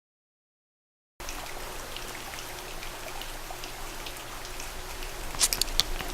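A steady rain-like patter with many small scattered drips and ticks, starting abruptly out of dead silence about a second in, with a few sharper clicks near the end.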